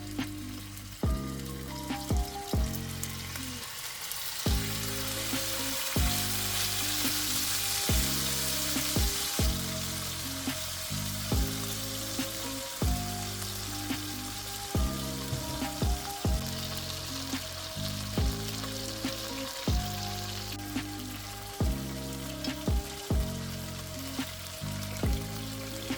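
Food frying in oil in a pan: a steady sizzle, loudest from about six to ten seconds in, over background music with a steady beat.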